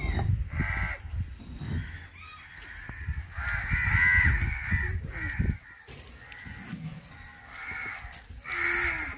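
Stone grinding roller rumbling and scraping back and forth on a stone grinding slab as paste is ground, stopping suddenly about five and a half seconds in. Crows caw repeatedly over it, loudest around four seconds in.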